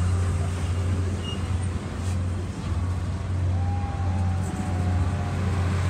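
Canadian Pacific Holiday Train freight cars rolling past: a steady low rumble of steel wheels on the rails.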